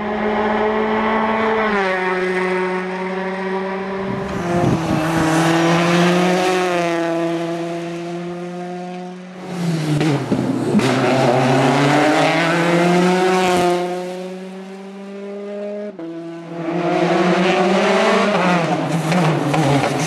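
Peugeot 208 T16 rally car's turbocharged 1.6-litre four-cylinder engine at race pace, its revs climbing and dropping again and again as the car approaches, passes and takes a tight corner. The sound breaks off and starts afresh a few times.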